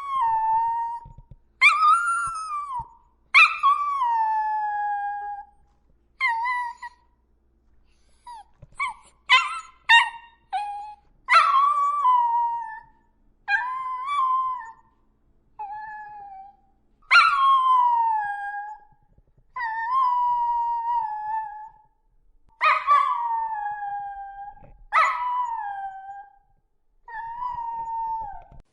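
Dachshund howling in a series of drawn-out calls, each starting high and sliding down in pitch. A run of shorter, quicker yelps comes about a third of the way through.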